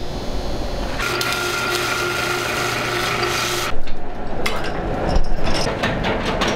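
MIG welding on aluminium, a steady buzzing hiss for about three seconds. After a cut it gives way to irregular clanking and ratcheting from a chain hoist and its hanging chains as an engine is lowered.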